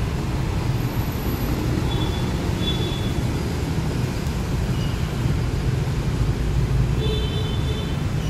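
Steady low vehicle rumble, with a few faint high tones briefly near the middle and near the end.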